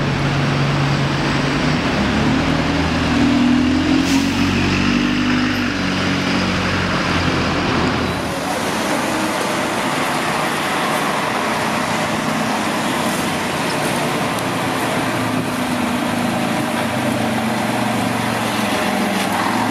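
A modern single-decker bus's diesel engine pulling away close by, its pitch rising as it accelerates. About eight seconds in, this gives way to steady wet-road traffic noise, with a bus engine drawing nearer near the end.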